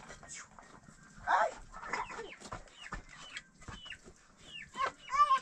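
Chickens clucking, with short high falling peeps repeated throughout and a couple of louder calls about a second in and near the end.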